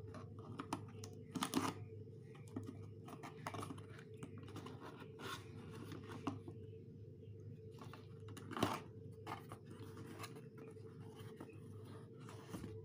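A taped cardboard box being cut open with a knife and its flaps torn and pulled back: a run of short scraping and ripping sounds, with the loudest rips about a second and a half in and about two-thirds of the way through, over a steady low hum.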